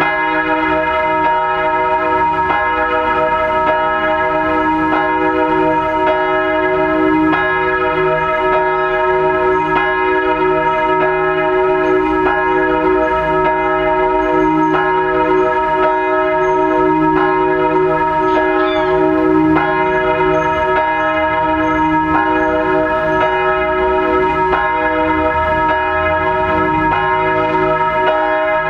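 A single large bronze church bell, the 1,543 kg Rincker-cast "Reformationsglocke" tuned to E-flat (es′), swinging and tolling with regular strokes. Each stroke renews a long, sustained ring with a deep hum under it.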